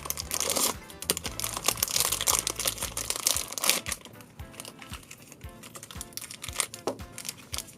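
Plastic blind-bag packet of a Shopkins toy crinkling as it is handled and opened by hand, the crackling densest in the first half, over light background music.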